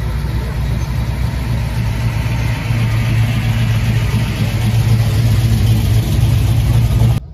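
Classic Dodge Charger R/T's V8 running with a deep, steady rumble as the car rolls slowly past, growing louder about halfway through. It cuts off abruptly near the end.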